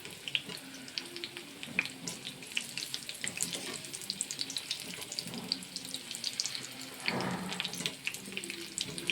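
Pakoras frying in hot oil, a steady dense crackle and sizzle. A brief louder noise comes about seven seconds in.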